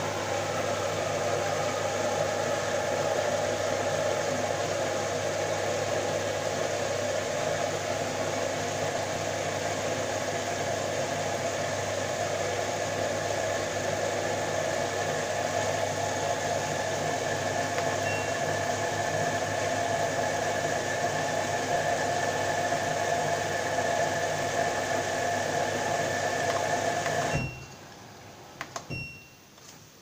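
Front-loading washing machine running with a steady hum, which cuts off suddenly near the end, followed by a few clicks and short high beeps.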